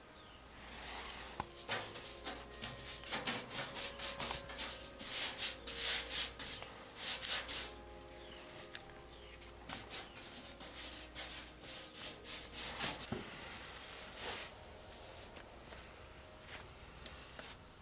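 Irregular rubbing and scraping strokes against a surface, coming thick and loud for the first two-thirds, then thinning to a few faint scrapes.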